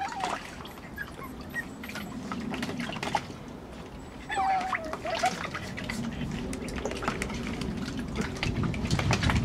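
Puppies splashing and scrabbling in shallow water in a plastic paddling pool, claws clicking on the plastic. One puppy gives a short wavering whine about four to five seconds in, and a briefer one right at the start.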